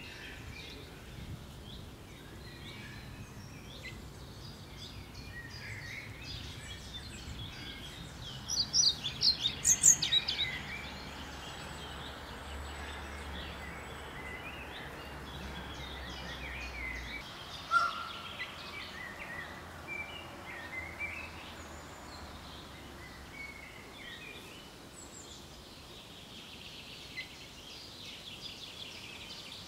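Several songbirds singing in woodland, with scattered high chirps throughout. About nine seconds in, one bird sings a loud, high phrase of rapid notes lasting about two seconds. A single sharp call comes a little over halfway through, over a faint steady background noise.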